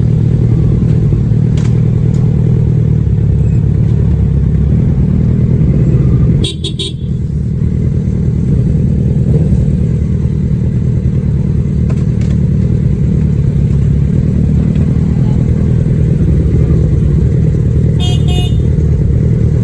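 Kawasaki ZX-10R's inline-four engine on its stock exhaust, running steadily under way, dipping briefly about six and a half seconds in. Short horn beeps sound at that dip and again near the end.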